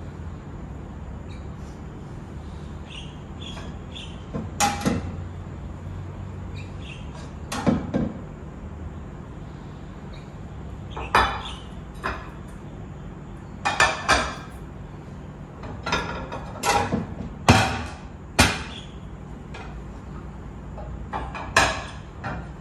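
Dinner plates clinking and knocking as they are taken out of a kitchen cabinet and set down on the counter, about ten sharp clinks at irregular intervals, some in quick pairs. A steady low hum runs underneath.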